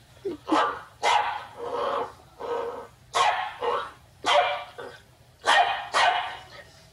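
Dog barking repeatedly: about a dozen short, sharp barks, many coming in quick pairs.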